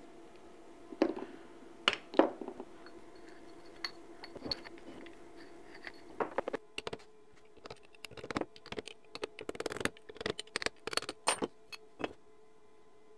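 Steel parts of a three-jaw lathe chuck being taken apart by hand, clinking and clacking against each other and the bench: bevel pinions, jaws, body and scroll plate. Scattered knocks at first, then a dense run of quick metallic clicks in the second half.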